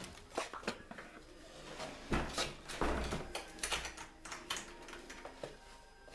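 Irregular knocks and clatter in a small room, with two heavier thumps about two and three seconds in.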